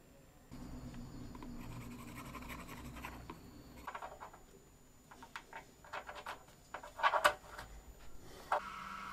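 Small machined metal parts handled and fitted together by hand: light scraping, rubbing and scattered clicks as a splined steel shaft and collar are worked into an aluminium ball-bearing housing. A cluster of sharper clicks comes about seven seconds in, over a faint low hum.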